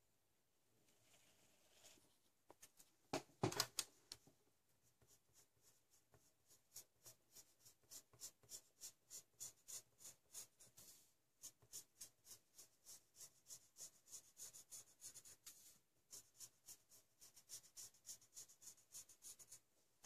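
Graphite pencil stroking on paper, a quick rhythmic run of about two to three scratchy strokes a second with a couple of short pauses. A brief louder rubbing scrape comes about three seconds in.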